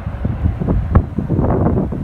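Wind buffeting the microphone in loud, irregular low gusts.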